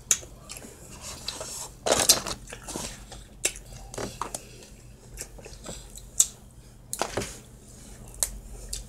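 Eating sounds: chewing and mouth noises, with irregular sharp clicks and short bursts as food is pulled apart by hand over a plate.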